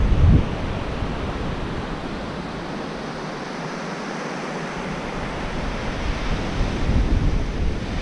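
Ocean surf washing up on a sandy beach, with wind buffeting the microphone. The low rumble eases off in the middle and builds again near the end.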